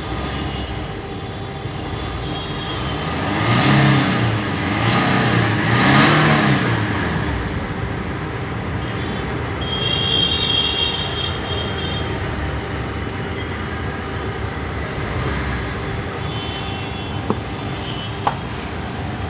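A vehicle engine running steadily, its pitch rising and falling a few times about four to six seconds in, with two sharp clicks near the end.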